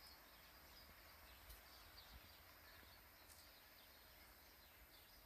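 Near silence: faint outdoor ambience with scattered faint, short bird chirps.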